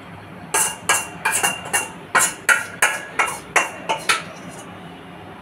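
Metal spoon clinking against a bowl, about a dozen sharp ringing taps at roughly three a second that stop about four seconds in.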